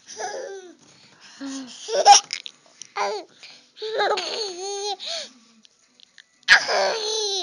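Baby laughing and babbling in about five short bursts, high-pitched and rising and falling.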